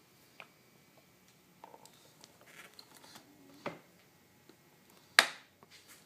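A few scattered sharp pops and clicks from a GasGas motorcycle, with no engine running underneath. A medium pop comes at about three and a half seconds and the loudest about five seconds in.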